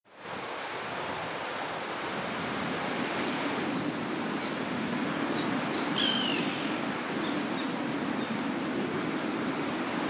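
Small Black Sea waves breaking and washing up the beach in a steady surf wash that swells and eases. About six seconds in comes one short, high call falling in pitch, with a few faint chirps around it.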